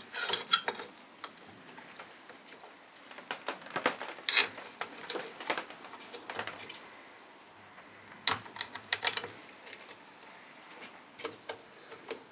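Scattered small clicks and knocks of metal parts being handled and fitted on a mitre saw, coming in several short clusters with quiet gaps between them.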